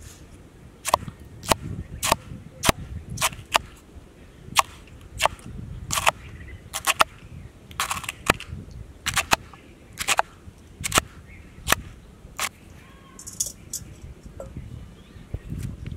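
A run of about twenty sharp clicks or knocks, irregularly spaced roughly one or two a second, which stop about twelve seconds in.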